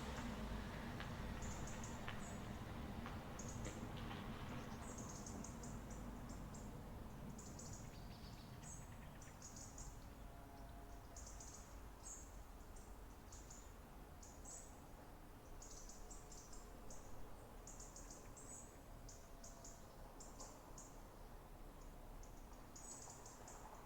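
Small birds chirping in short, very high, thin bursts that repeat all through, over a low rumble that fades away over the first few seconds.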